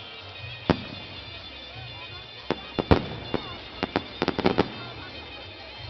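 Fireworks exploding: one sharp bang, then a quick volley of about ten cracks and bangs in the middle, the loudest about three seconds in. Music and faint voices run underneath.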